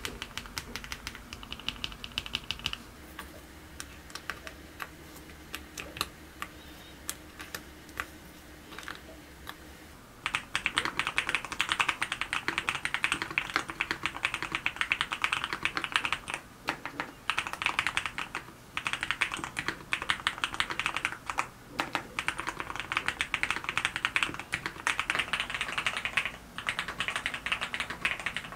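Mechanical keyboard with lubed Sea Salt switches in a Geon F1-8X being typed on, with a pebble-like clack. Single, spaced keystrokes for about the first ten seconds, then fast continuous typing in runs with short pauses.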